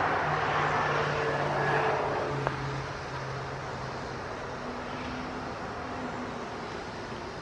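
A passing vehicle, loudest for the first two and a half seconds, then dying away into a steady background rumble, with a single sharp click about two and a half seconds in.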